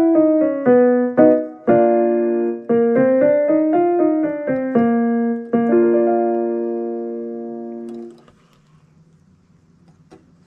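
Piano playing a vocal warm-up scale pattern: quick notes climbing and falling back over a held chord, twice, ending on a sustained chord that dies away about eight seconds in. Only a faint background remains after that.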